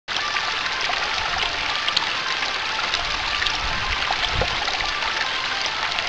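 Floodwater stream trickling and splashing over rocks, a steady rush of running water.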